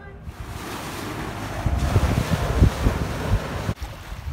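Wind gusting across the microphone over open sea water, with the wash of the sea beneath it; the sound drops out briefly near the end.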